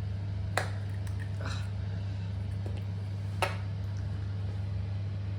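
Small plastic parts of a toilet float valve being handled while its washer is changed: two sharp clicks about three seconds apart and a softer tap between, over a steady low hum.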